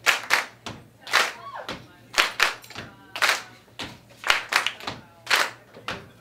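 Rhythmic body percussion: sharp hand claps and slaps in short groups of two or three strikes, a group about every second, with no music under it.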